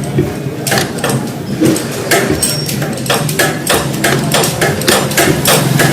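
Repeated hammer blows on metal, roughly three strikes a second, starting about a second in.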